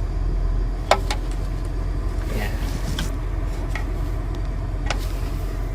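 Three sharp clicks and taps of hands working plastic parts in a car's centre console, over a steady low rumble.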